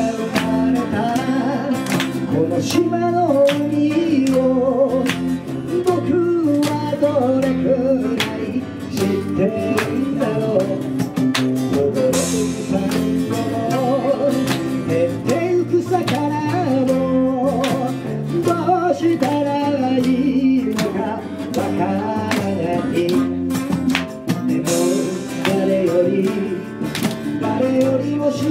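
Live acoustic band playing and singing: male vocals over strummed ukulele, sanshin and acoustic guitar.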